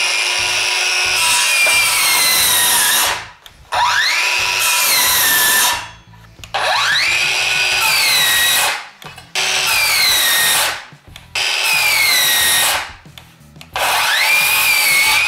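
Ryobi P508 18V brushless 7-1/4 in. circular saw cutting into a 2x4 in about six short runs. Each run, the motor whines up to speed, its pitch sags under the load, and within two or three seconds it cuts out and winds down: the saw's auto load cutoff is tripping.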